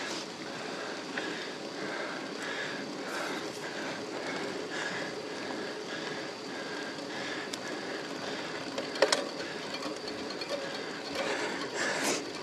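Road bicycle ridden slowly up a steep climb: steady road and wind noise with a soft rhythmic pulse a little under twice a second, about the pace of the pedal strokes, and a single sharp click about nine seconds in.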